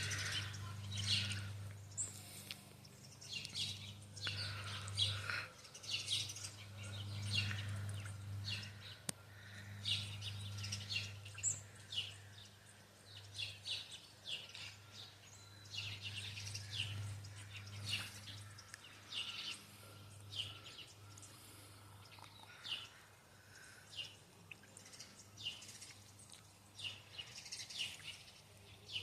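Small birds chirping and calling in short, repeated notes, over a low steady hum.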